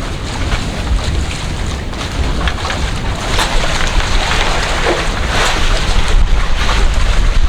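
Wind buffeting the microphone over the steady rush and rumble of a sailboat motoring at sea, with a few brief louder gusts.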